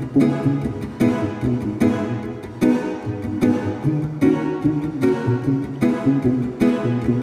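Acoustic guitar playing a syncopated rocksteady reggae bass line on the low strings that dances around rather than sitting on the first beat, with sharp chord strikes at fairly even spacing, a little under one a second.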